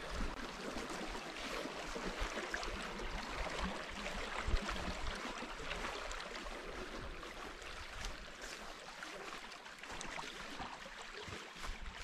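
Small meadow stream running over a shallow bed, a steady rushing of water.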